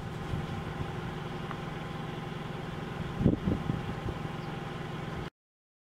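Car engine idling steadily, with a brief low rumble a little past three seconds in; the sound cuts off suddenly about five seconds in.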